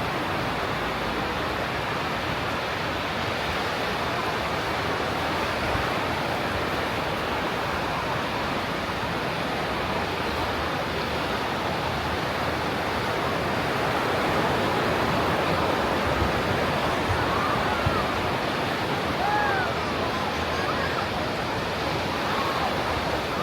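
Steady rush of ocean surf breaking and washing on a beach.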